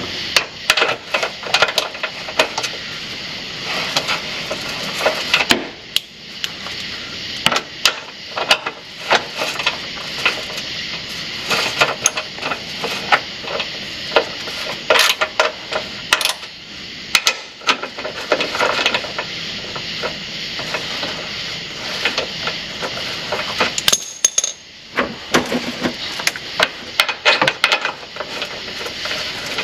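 Metal hand tools clinking and clicking under a truck, in irregular runs, as a ratchet and socket tighten bolts back up, over a steady background hiss.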